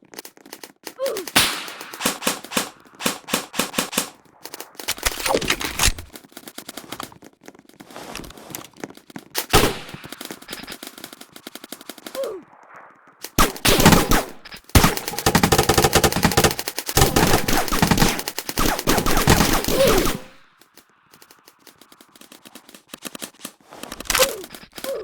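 Rapid automatic gunfire in repeated bursts, with one long unbroken burst of about six seconds past the middle.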